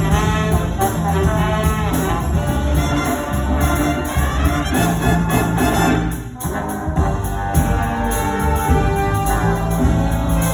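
High school jazz big band playing, the brass section of trumpets and trombones carrying the tune over a bass line, with a short drop-out about six seconds in.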